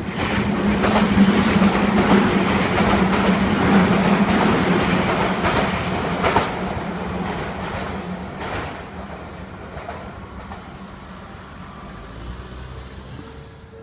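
A Japanese electric train passing close by: a loud rushing of wheels on rails with a steady low hum and scattered clicks over the rail joints. It is loudest in the first few seconds and then fades slowly as the train moves away.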